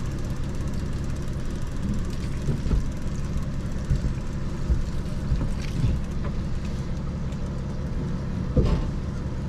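Boat's outboard motor running steadily at trolling speed, with a few short knocks and clunks on the boat.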